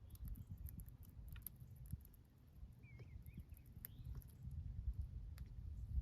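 Faint backyard sound: a low rumble with scattered small clicks, and one short wavering bird chirp about three seconds in.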